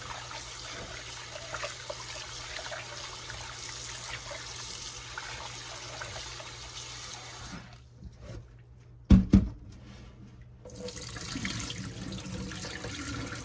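Kitchen tap running into a stainless steel bowl of hog maws in a steel sink, with hands swishing and rinsing the meat in the water. A little past the middle the water stops for a few seconds, broken by two loud knocks in quick succession, then it runs again.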